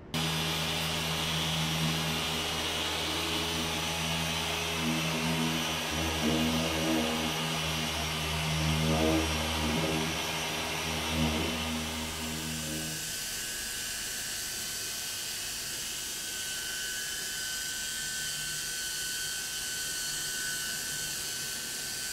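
Dual-action polisher running on car paint during the cutting stage of a paint correction: a steady motor hum whose pitch wavers for a few seconds in the middle, then cuts off suddenly about 13 seconds in. After that comes a steady hiss with a thin high tone.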